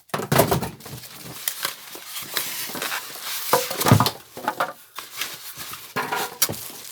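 Cardboard box and packaging being handled and pulled about as a boxed bench grinder is unpacked: irregular rustling and scraping with scattered knocks and clunks, the loudest about four seconds in.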